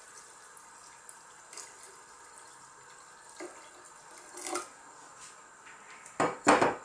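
Water poured from a jug into a pot of sautéed seafood and vegetables, a faint steady splashing of water into the liquid. Near the end comes a louder short clatter.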